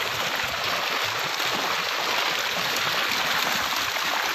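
Steady splashing and churning of water as a seine net full of milkfish is hauled through a shallow pond, the fish thrashing at the surface.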